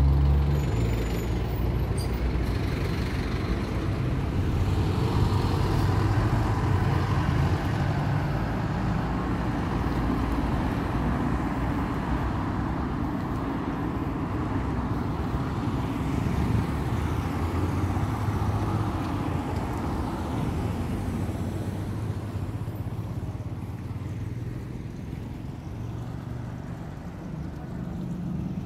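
Street traffic: motor vehicle engines running and passing, loudest at the start and easing off toward the end.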